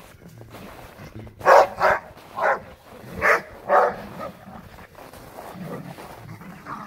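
Dog barking in play while wrestling with other dogs: five short, sharp barks close together about a second and a half in, then lower growling.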